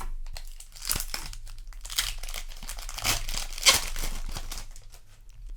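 Foil booster pack wrapper crinkling and tearing under the hands, in a string of crackly bursts that peak about two thirds of the way through, then die away.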